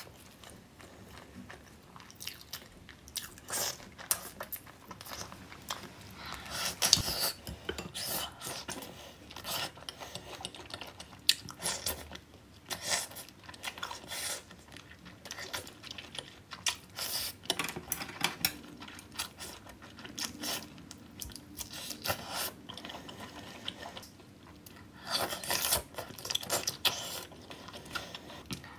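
Close-miked eating of spicy noodles and seafood: wet chewing, biting and crunching in irregular short sharp bursts, with a few longer noisy stretches of mouth sounds.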